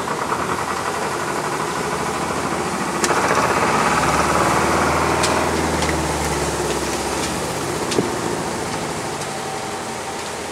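A sailing yacht's inboard engine running at low revs, a steady hum that grows louder for a few seconds about three seconds in, then settles back. A few faint clicks over it.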